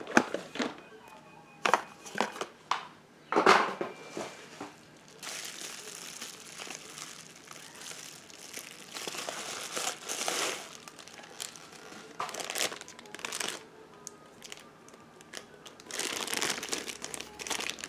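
Packaging crinkling and rustling as it is handled, with scattered light clicks and taps. The crinkling comes in two longer stretches, the first mid-way through and the second near the end.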